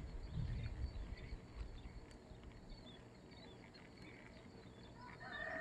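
Faint outdoor ambience: a low rumble with scattered faint chirps of distant birds.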